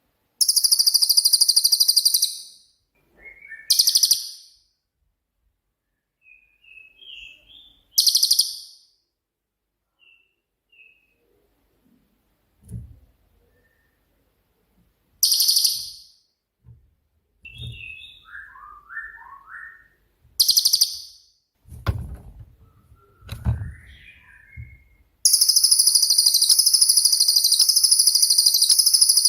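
Cililin songbird singing loud, very high-pitched shrill trills in short bursts of one to two seconds, then one long unbroken trill from about 25 seconds in. Softer, lower twittering notes come between the bursts. This is the rapid 'shooting' (tembakan) song that keepers use as a masteran to teach other songbirds.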